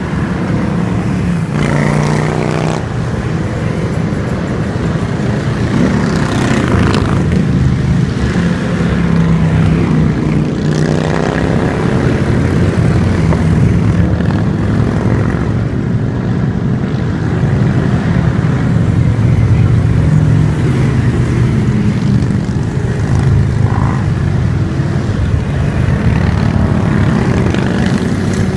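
Motorcycles riding past one after another, engines running steadily, with several louder pass-bys as individual bikes go by.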